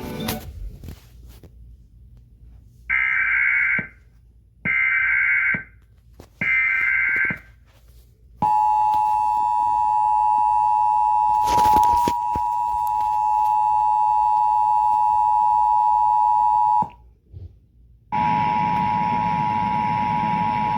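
Emergency Alert System broadcast tones: three one-second bursts of warbling SAME header data, then the two-tone EAS attention signal held steady for about eight seconds, with a brief crackle of static partway through. After a second's gap, the attention tone returns with noise beneath it.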